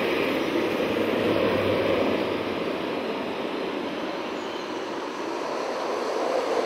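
Urethane wheels of a pack of buttboards rolling fast on asphalt: a steady rumbling hiss that dips slightly midway and swells again near the end as the riders come closer.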